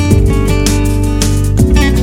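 Background music: guitar-led instrumental with a steady beat and strummed or plucked strings over bass.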